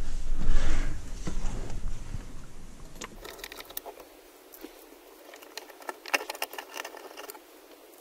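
Low rumbling handling noise with rustling, then, after the low end drops out abruptly, light clicks and rattles of small parts being handled, thickest a couple of seconds before the end.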